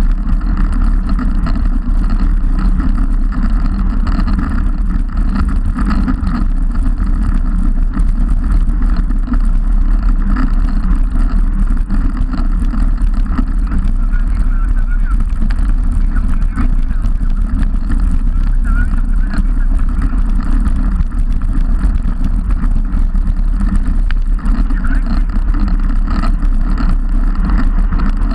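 Wind buffeting the microphone of a camera on a moving road bike's handlebars: a loud, steady low rumble.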